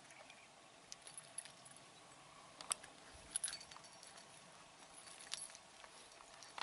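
Faint outdoor ambience: a steady hiss with a few scattered sharp ticks and short high chirps.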